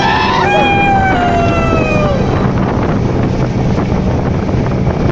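Motorboat engine running steadily, with wind buffeting the microphone. In the first two seconds a high pitched tone rises quickly, then slides slowly downward and fades.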